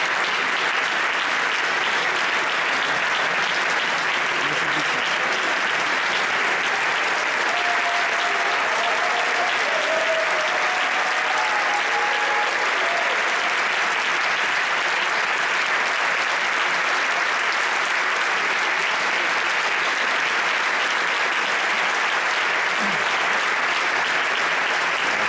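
A large concert audience in a theatre applauding steadily, with continuous clapping throughout. A few voices briefly call out partway through.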